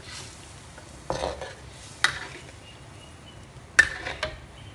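Metal ladle knocking and scraping against a wok while a thin gravy is stirred: a few sharp clinks, the loudest a little before the end.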